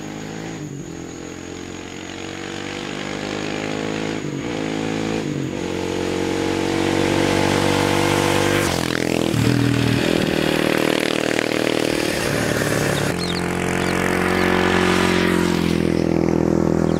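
Hero XPulse 200 4V motorcycle's single-cylinder four-stroke engine through a Motowings full-system aftermarket exhaust, riding past several times. The exhaust note rises and drops in pitch over and over and gets louder as the bike comes closer.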